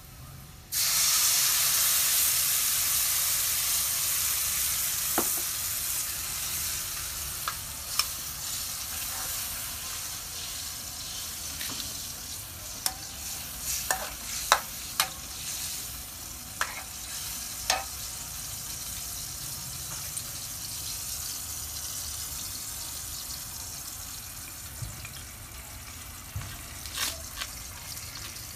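Food frying in hot oil: a loud sizzle starts suddenly about a second in, as the food goes into the hot pan, then slowly dies down, with scattered sharp clicks.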